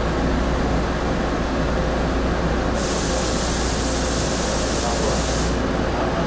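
Diesel railcar rolling slowly into a station, its engine giving a steady low drone. About three seconds in, a hiss of compressed air starts and lasts nearly three seconds.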